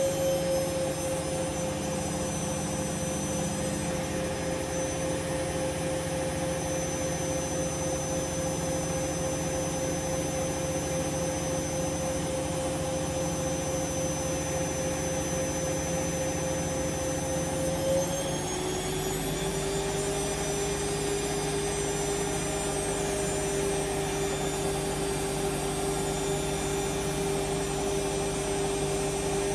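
Hoover Vision Dynamic washing machine spinning, its motor giving a steady whine over the drum's running noise. About two-thirds of the way through the whine drops in pitch and settles lower as the drum slows to a lower spin speed.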